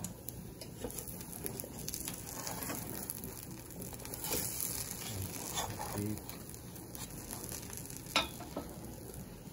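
Hotcake batter sizzling steadily in a skillet, with light scrapes and clicks of a metal spatula against the pan as the hotcake is lifted, and one sharper clack a little after eight seconds in.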